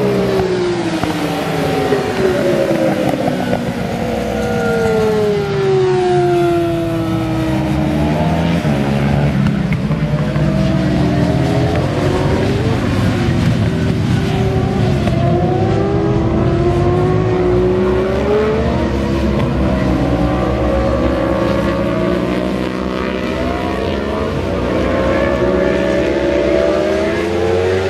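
A group of sport motorcycles racing on a circuit, several engines revving at once. Their pitches repeatedly climb and fall as the bikes accelerate and pass.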